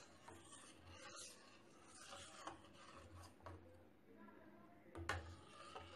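Faint scraping and swishing of a ladle stirring hot milk in a steel pan as it curdles with lemon juice into chhena, with a light knock about five seconds in.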